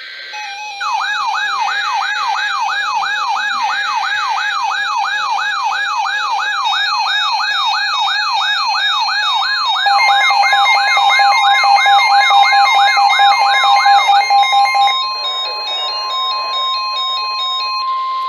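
Emergency alert alarm on a weather radio: an electronic siren wailing up and down about twice a second, then the steady NOAA Weather Radio warning tone held alone for the last few seconds, announcing an emergency alert broadcast.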